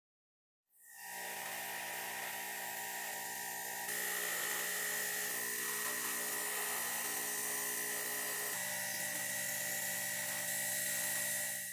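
Small electric motor running at high speed with a steady high whine, starting suddenly about a second in and getting a little louder about four seconds in.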